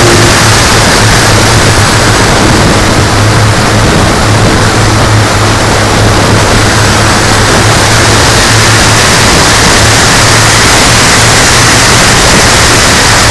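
Engines of a radio-controlled B-17G scale model droning steadily: a constant low hum under a loud, even rushing noise.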